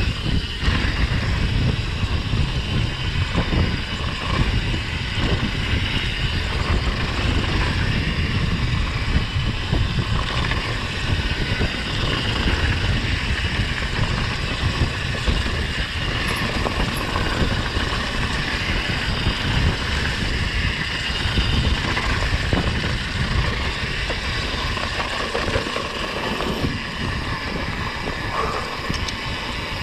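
Mountain bike riding down a dirt trail: wind buffeting the microphone over the rolling and rattling of the bike.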